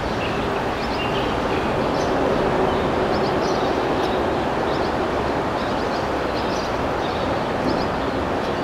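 Steady rushing outdoor noise at a riverside, with faint short high chirps scattered through it.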